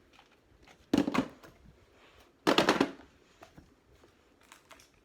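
Play-Doh tubs and squishies being dropped into a storage bin: two short clattering bursts about a second and a half apart, with faint handling clicks between.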